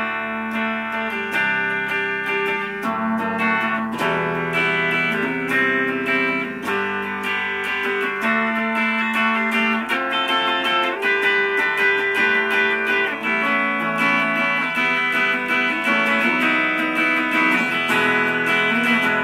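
Epiphone SG electric guitar on its bridge pickup, played through a Boss Katana Mini amp on the clean channel with gain, volume, bass, mid and treble all at the middle and the delay off. Chords and picked notes ring out without a break.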